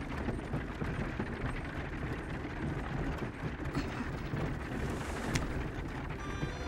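Horse-drawn wooden wagon rolling: a steady rumble and rattle of its wheels, with a sharp click about five seconds in.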